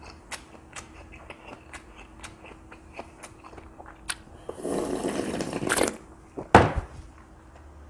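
Close-up eating sounds: wet chewing clicks, then cheonggukjang broth slurped straight from the bowl for about a second and a half. One sharp knock follows shortly after.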